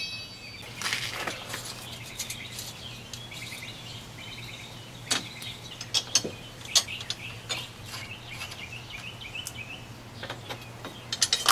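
Birds chirping steadily in the background, with a low hum, while sharp metal clicks and clinks sound every so often: hand tools and hardware being worked on bolts and screws. The clicks are the loudest sounds, with a cluster near the end.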